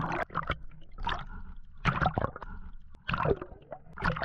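Water gurgling and sloshing around a submerged camera, in irregular bursts with knocks.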